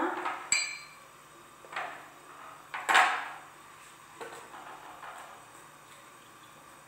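Kitchenware being handled: a light ringing clink about half a second in, a dull knock near two seconds and a louder knock and clatter near three seconds, then a few softer knocks, as butter and icing sugar are worked by hand in a plastic mixing bowl and eggs are picked up.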